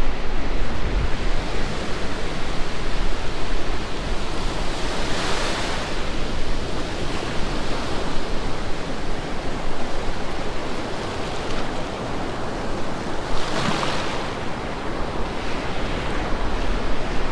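Gulf surf washing in over a shallow sandy beach, with wind rumbling on the microphone. Two waves break more loudly, about five seconds in and again about fourteen seconds in.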